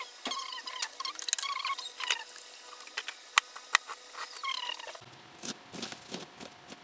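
Kitchen knife cutting through a block of still-frozen blood on a chopping board, giving short squeaks and sharp clicks with each stroke. The squeaking is the sign that the blood is still frozen.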